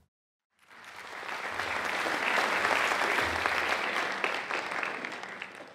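Audience applause that fades in about half a second in, swells, then fades away near the end.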